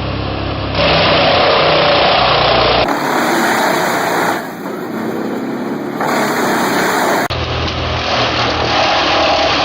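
Wood chipper engines running loud and steady across a string of short clips, with the sound changing abruptly at each cut.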